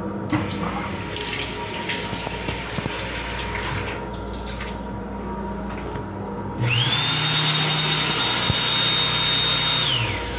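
Sensor faucet of an M7 railcar restroom's combined dryer-faucet unit running water into the sink. About six and a half seconds in, the hand dryer starts with a quickly rising whine, blows steadily and loudly for about three seconds, then winds down near the end.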